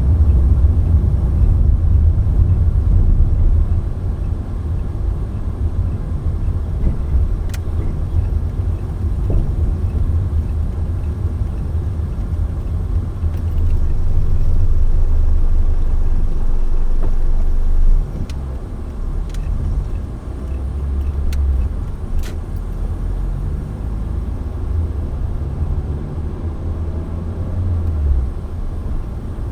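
Low rumble of a moving car's engine and tyres on the road, heard from inside the car, with a few faint clicks; the rumble drops a little about eighteen seconds in.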